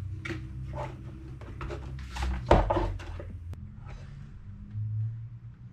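Clicks, knocks and scrapes of a tool working on a vacuum cleaner's turbine and plastic housing during disassembly, the loudest knock about two and a half seconds in, over a faint low hum.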